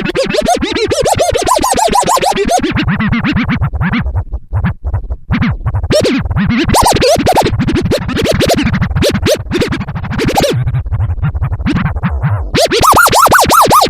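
Turntable scratching: a vinyl record pushed back and forth under the stylus, making rapid rising and falling pitch sweeps. The strokes thin out and drop lower about three seconds in, then turn into a faster, higher run near the end.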